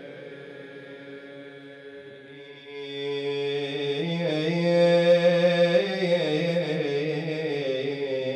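A solo male voice chanting a Shia nai (elegy for Muharram), drawing out long, wavering melismatic notes with no words clearly sung. It is softer for the first couple of seconds and swells louder from about three seconds in.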